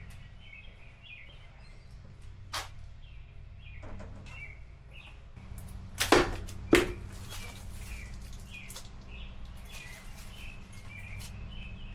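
Small birds chirping over a steady low hum, with a sharp click a couple of seconds in and two loud knocks about six and seven seconds in.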